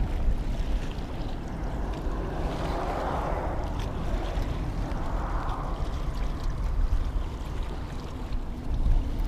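Wind rumbling on the microphone over small bay waves washing against a rocky shoreline, swelling and fading every few seconds.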